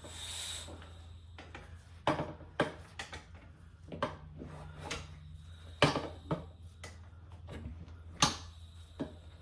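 Scattered sharp knocks and clunks, about half a dozen, from motorcycle tire-changing tools (tire changer and bead breaker) being worked against a rear wheel, over a steady low hum.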